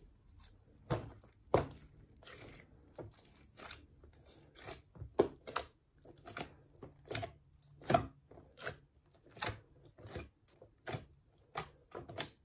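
A large mass of mixed slime, several textures kneaded together, pressed and poked by fingers, giving a run of short, sharp pops and crackles a little more than one a second.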